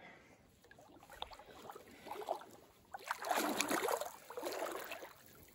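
Feet wading through shallow water in trail runners, sloshing and splashing with each step, louder from about three seconds in.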